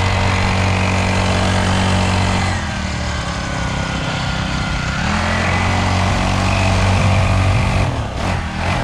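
Motorcycle engine running while riding, its note easing off about two and a half seconds in, picking back up about five seconds in, and dropping away near the end.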